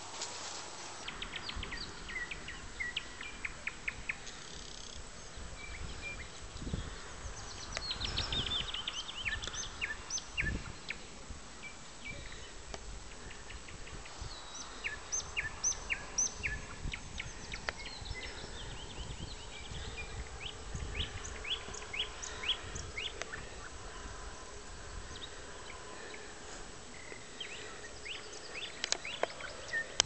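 Nightingales singing: phrases made of rapid series of short repeated notes and whistles, with pauses between them, over steady outdoor background noise. A few low rumbles come in between.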